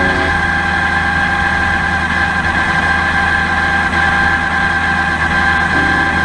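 Motorcycle running at a steady pace, a continuous even drone of engine and road noise. A few notes of background music come in near the end.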